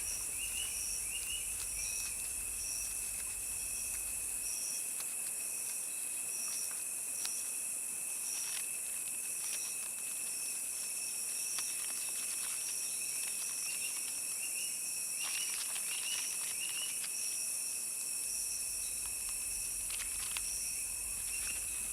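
Tropical insect chorus: a steady high shrill of insects, with a chirp that pulses about twice a second over it.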